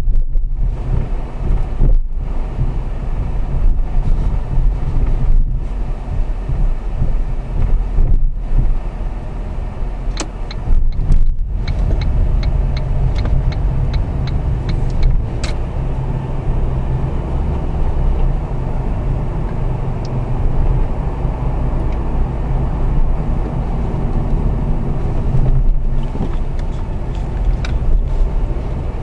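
Car cabin noise while driving: a steady low rumble of engine and tyres. A run of light, evenly spaced ticks comes in for a few seconds about a third of the way through.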